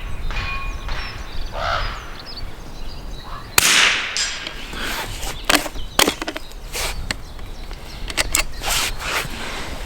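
Norinco JW25A bolt-action .22LR rifle firing one sharp shot about a third of the way in. A string of short metallic clicks and clacks follows, as the bolt is worked and the rifle handled.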